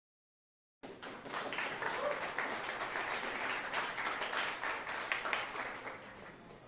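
Small audience applauding, many hands clapping at once; it starts suddenly about a second in and dies away near the end.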